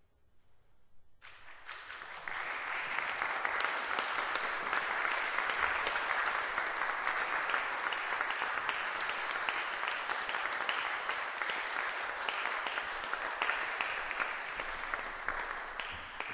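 Audience applauding. The clapping starts about a second in, fills out a second later, holds steady, and fades near the end.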